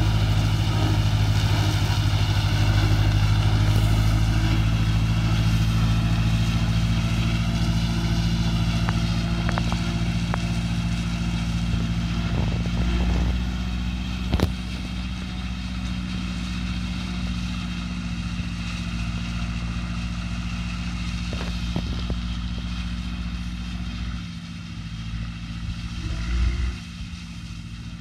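John Deere 2250 tractor's three-cylinder diesel running steadily under load as it powers a rotary mower cutting alfalfa, fading as the tractor moves away. A single sharp click about halfway through.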